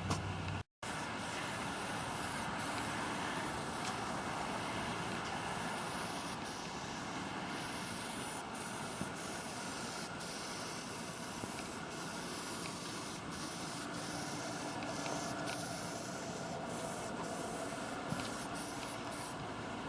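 Aerosol can of Plasti Dip rubber coating spraying: a steady hiss broken by many short gaps.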